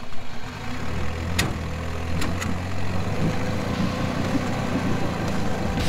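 Old 50 hp Johnson two-stroke outboard idling steadily just after being jump-started, settling into its idle about a second in. Three sharp clicks come in the first half.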